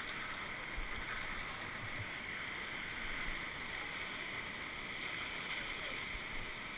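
Whitewater rapids of an artificial slalom course rushing steadily around a raft, heard at water level. A few faint low knocks sound through it.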